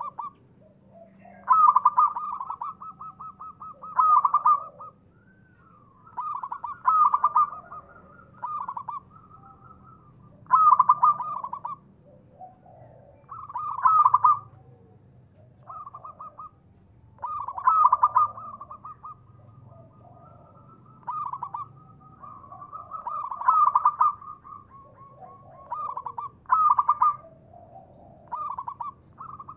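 Zebra dove (perkutut) cooing: rolling, rapidly pulsed coo phrases repeated every two to three seconds, with softer pulsed notes between the louder bursts.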